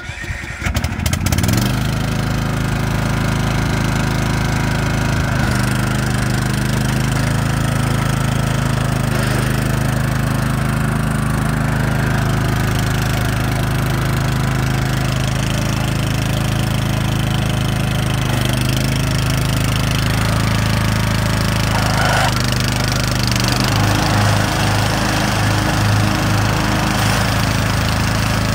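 19 hp Ryobi riding lawnmower's engine coming up to speed in the first second and a half, then running steadily. About 23 seconds in its note changes and takes on a pulsing beat.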